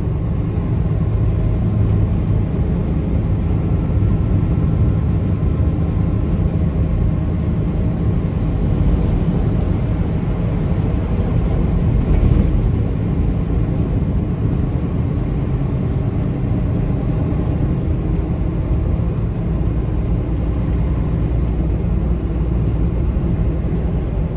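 Car driving along the road: a steady low rumble of tyre, road and engine noise.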